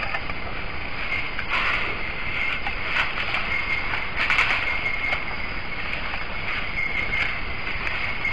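Night rainforest ambience through a trail camera's microphone: a steady hiss with a continuous high insect trill. A few brief rustles come as a forest elephant shifts in the grass and reaches its trunk to the mirror.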